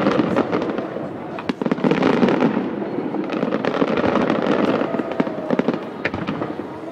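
Fireworks going off in a dense, rapid barrage of crackling pops and bangs, loudest in the first half and thinning a little after about five seconds.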